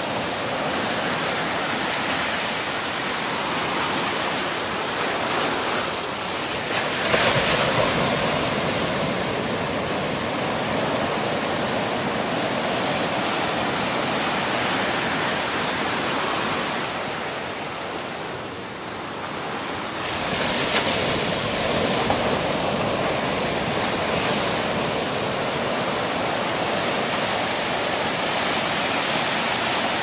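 Pacific Ocean surf breaking and washing up the shore in a continuous rush. It swells as waves break about seven seconds in and again a little after twenty seconds, easing off for a few seconds in between.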